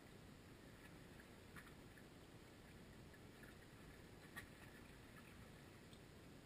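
Near silence: a faint steady low background hush, with a few faint short ticks, the clearest about a second and a half in and again past four seconds.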